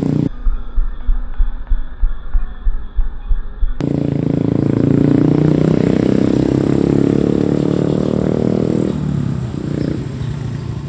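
Muffled, dull thumping at about three beats a second for the first few seconds. Then a motorcycle engine running close by, steady, dying away near the end.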